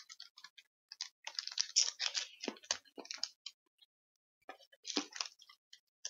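Close-up irregular crackling and clicking from a piece of hard candy and its plastic wrapper being handled, in a long cluster from about a second in and a shorter one near the end.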